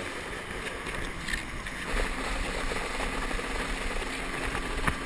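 Motorboat running, its engine a faint steady hum under a rush of water and wind noise that swells about two seconds in; one sharp knock near the end.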